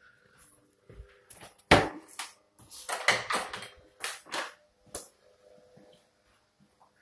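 A run of irregular knocks and thumps in a small room. The loudest comes about two seconds in, a quick cluster follows around three seconds, and a few single knocks come after that.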